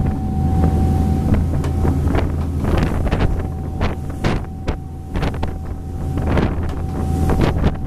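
Motorboat engine running at speed, a steady low drone with a thin whine above it, while the boat pushes a wake through open water. Wind buffets the microphone in repeated sudden gusts.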